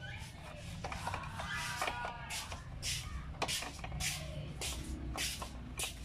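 Scattered small clicks and rustles of hands handling wiring while fitting a replacement refrigerator defrost timer, over a low steady rumble.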